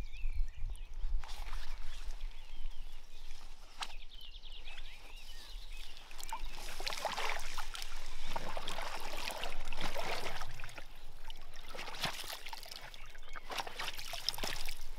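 Water splashing and trickling with irregular knocks and rustles, busiest in the second half.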